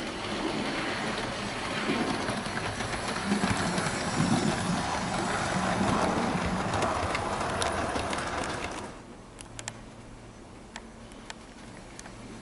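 Hornby OO gauge H Class model locomotive hauling three model coaches along the layout track, a running rumble and clatter of wheels on rail that grows louder as the train passes close by. The sound drops away suddenly about nine seconds in, leaving a faint hum and a few scattered clicks.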